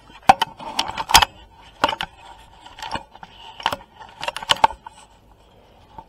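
A run of irregular sharp clicks and light clinks, about a dozen, with a quick cluster about four and a half seconds in: small hard objects being handled close to the microphone.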